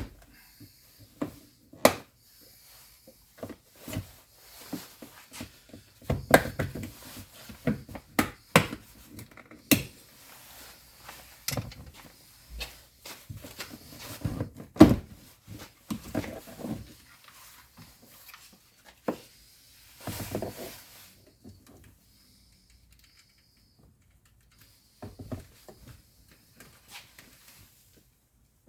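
Irregular clicks, snaps and knocks of hands and a tool working on a car's plastic interior door trim, as cover plates are pried off and set aside. The clicks come thick for most of the time, then thin out to a few near the end.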